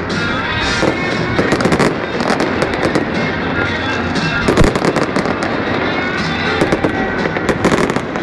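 Aerial fireworks going off in quick succession: many sharp bangs and crackles packed close together, with no break.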